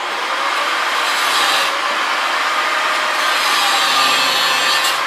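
Angle grinder with a cut-off wheel cutting through a steel chain link: a loud, steady grinding hiss that starts abruptly.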